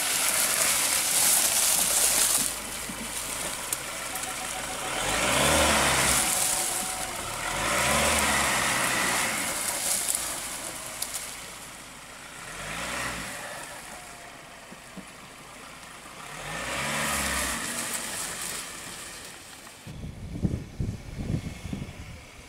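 Ford Ranger Raptor's 2.0-litre twin-turbo diesel revving up and easing off four times as the truck crawls over rough forest ground, with a steady rustling hiss from the tyres running through leaf litter and brush. Near the end, wind buffets the microphone.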